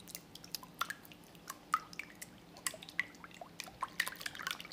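Silicone spatula stirring raw eggs in a glass mixing bowl: quiet, irregular small wet clicks and squelches as the beaten eggs slosh.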